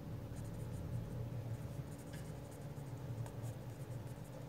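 Marker pen writing on paper, faint scratchy strokes as words are written out, over a steady low hum.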